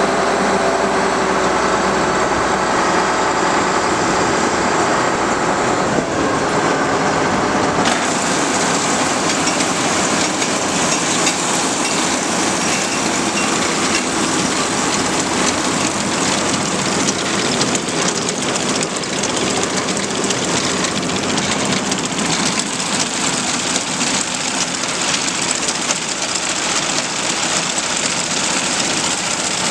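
Combine running with its Drago corn head engaged: a steady machine hum with a dense rattle of chains and drives. About eight seconds in, the sound turns brighter and more rattling.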